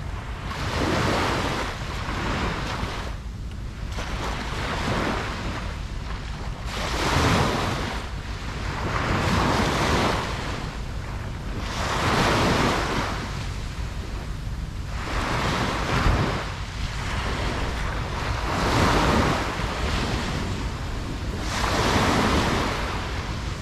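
Ocean waves breaking and washing up on a beach, surging and falling back one after another about every three seconds.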